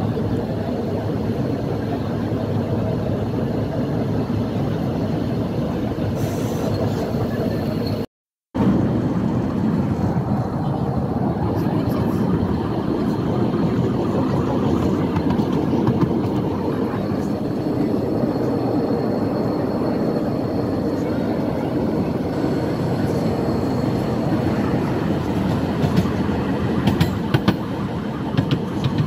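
Wheels of a 15-inch-gauge miniature park railway train rumbling steadily on the rails, heard from an open passenger car. A few sharp clicks come near the end, and the sound cuts out briefly about eight seconds in.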